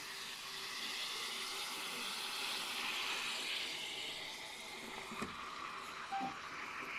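Self-heating pack reacting in water inside a plastic meal tray, fizzing and bubbling with a steady hiss that swells toward the middle and then eases. A few light plastic clicks near the end.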